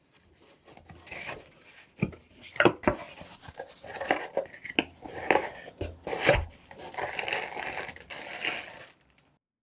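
Hands handling packaging: crinkling and rustling with several sharp taps and knocks. It stops abruptly about nine seconds in.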